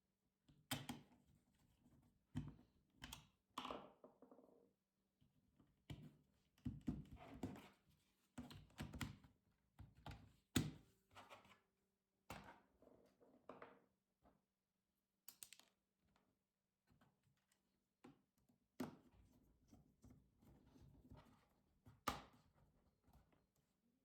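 Faint handling of a plastic laptop case and its parts: irregular clicks, taps and knocks with short bits of scraping between them, the sharpest clicks about ten seconds in and near the end.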